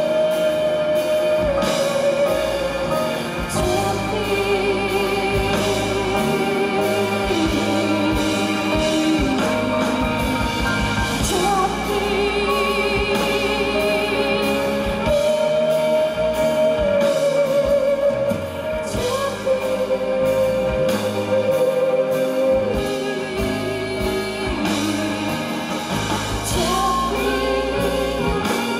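A woman singing a song, holding long notes with vibrato over instrumental accompaniment.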